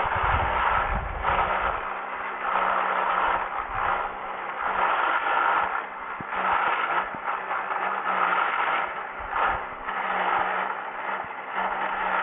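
A 1960s Texas Nail lawn edger running, its spinning blade digging a trench through turf and soil. A steady motor hum sits under a rough scraping noise that swells and eases every second or two as the edger is pushed along.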